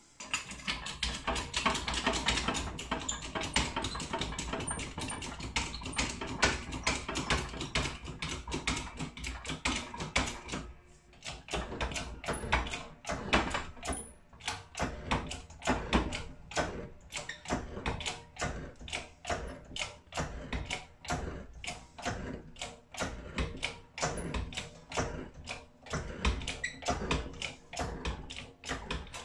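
A keyway broach is pushed through a gear's bore in a shop press, giving a run of sharp clicks and scraping as it cuts. The clicks come thick and fast at first, ease briefly about a third of the way through, then go on at about two or three a second.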